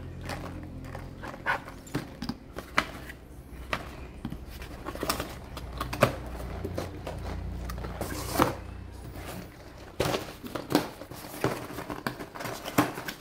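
Plastic fishing-lure packaging crinkling and clicking as it is handled and opened, with many short sharp clicks and rustles.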